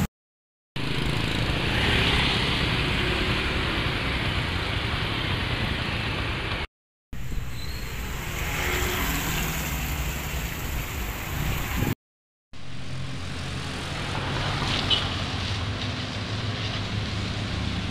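Motor vehicles running, with low engine hum under a steady rushing noise. It comes in three stretches split by two short silent breaks, about a third and two thirds of the way through.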